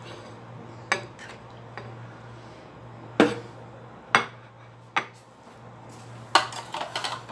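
Metal spoon and fork clinking and knocking against a stainless steel frying pan and a ceramic plate while chicken in cream sauce is served out. About half a dozen sharp clinks, the loudest about three and six seconds in, with a quick run of them near the end, over a low steady hum.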